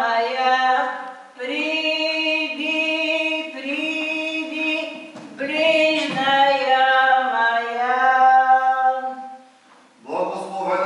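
A woman singing Orthodox church chant unaccompanied, in long held phrases with short breaks for breath; the singing stops briefly near the end and a voice starts again.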